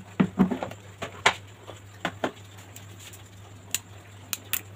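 Pot of water heating on the stove: scattered sharp ticks and small pops over a steady low hum.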